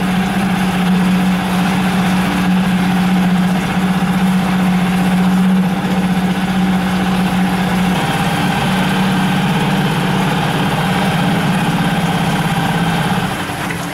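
Yamaha F5 single-cylinder four-stroke outboard running at a steady idle, burning off the last fuel in its carburettor and hoses before transport. Its note turns slightly rougher about eight seconds in.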